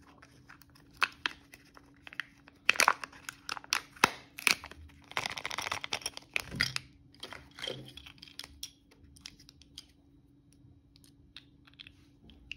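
Thin plastic seal being peeled off a Kinder Joy's plastic toy tray, with crinkling and sharp plastic clicks, and a longer tearing peel about five seconds in. Then scattered clicks of the small plastic toy capsule being handled and opened, fading to a few light ticks near the end.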